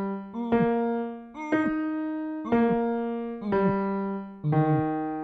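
Piano playing a vocal-exercise accompaniment: a series of struck notes or chords, about one a second, each stepping to a new pitch and dying away, the last fading out near the end.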